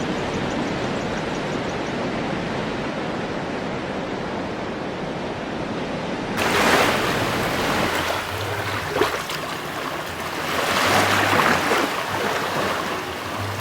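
Ocean surf on a shore: a steady rush of water, then about six seconds in an abrupt change to a brighter sound of waves swelling and breaking every few seconds.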